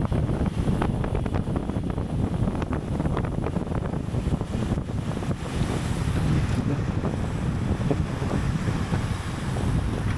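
Wind buffeting the microphone of a camera carried on a racing bicycle at race speed: a steady, gusty low rumble, with scattered sharp clicks in the first few seconds.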